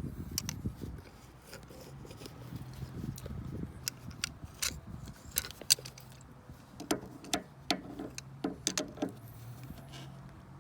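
Scattered sharp clicks and light knocks from a Volvo XC90's front strut mount as the suspension is worked, coming faster in a cluster late on; it is the clunking of a busted, worn-out strut mount.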